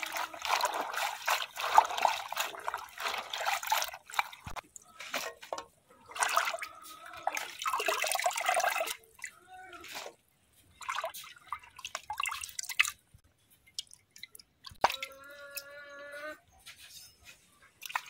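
Water trickling and dripping in broken spells, steadiest in the first few seconds. A short pitched call sounds about fifteen seconds in.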